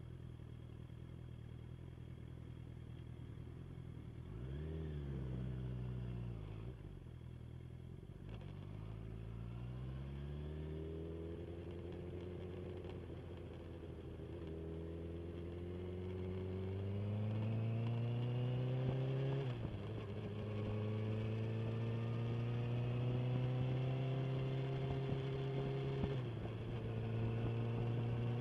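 Inline-four sport motorcycle engine ticking over, blipped once about four seconds in, then pulling away with its pitch climbing steadily for about ten seconds. Later its pitch drops sharply once and dips a little once more, then it runs on steadily.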